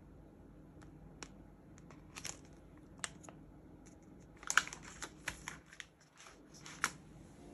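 Packaging being handled: scattered crackles and sharp clicks, busiest about halfway through, over a faint steady hum of room tone.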